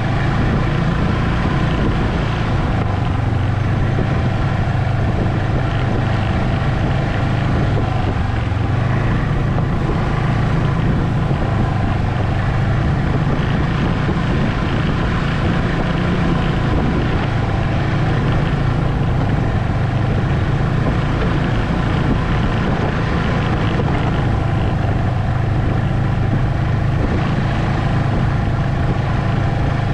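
Ski-Doo Expedition SE snowmobile running at a steady cruise, heard from its own seat: a constant engine drone with track noise that holds level throughout.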